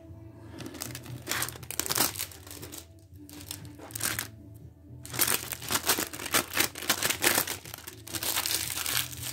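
Thin clear plastic sheeting crinkling as it is crumpled by hand and pulled off the top of an air compressor's cylinder block. It comes in two spells of rustling, the second one longer and denser.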